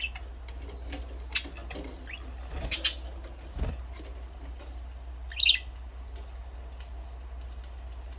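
Budgerigars giving short, scattered chirps, with a loud pair of calls about a third of the way in and another call near the middle. A single low thump comes just after the pair, over a steady low hum.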